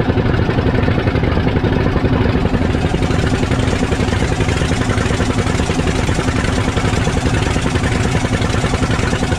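Outrigger fishing boat's engine running steadily while under way, over the rush and splash of the hull and outrigger through the waves.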